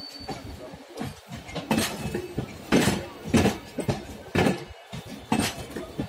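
Wheels of passing LHB passenger coaches clacking over rail joints: sharp metallic knocks about every second, over a low rolling rumble.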